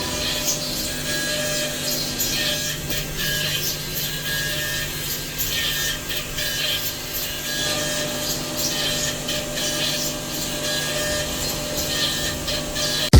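CNC machine cutting metal: a steady machine hum with a recurring higher whine, under irregular short scraping, hissing cutting noise.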